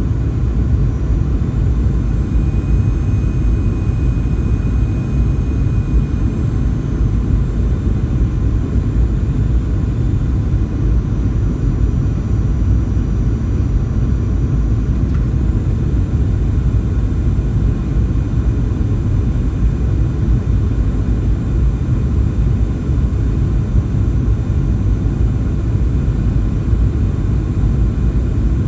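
Jet airliner on its landing approach, heard as steady cabin noise: a loud, even low rumble of engines and airflow with faint high whines over it.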